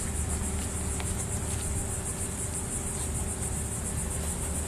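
Insects chirring in a steady, high, rapidly pulsing drone, over a low steady rumble.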